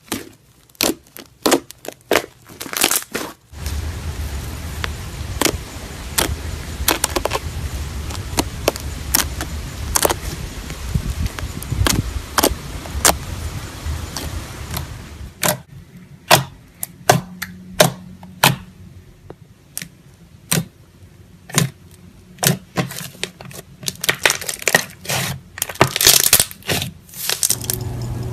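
Slime being squeezed and poked by hand, giving a run of sharp crackling pops and clicks, some coming in quick clusters.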